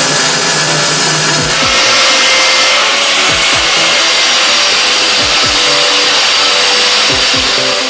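An angle grinder cutting steel: a loud, steady grinding hiss that comes in about a second and a half in, over electronic music with a kick-drum beat.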